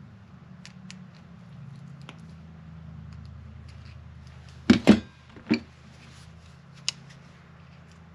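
Pliers clicking and clacking on a metal ring terminal as its barrel is pinched onto a heavy-gauge battery cable. A few light ticks come first, then two loud clacks a little past halfway, another shortly after, and one sharp click near the end, over a steady low hum.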